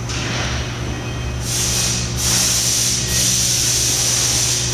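A steady low machine hum with a loud hiss over it that swells twice, briefly about a second and a half in and again for the last second and a half.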